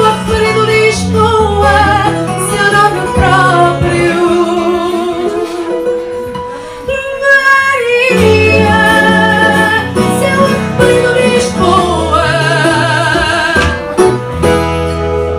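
A woman sings fado in long, wavering held notes, accompanied by plucked guitar. The voice eases off briefly about halfway through, then returns strongly over the guitar chords.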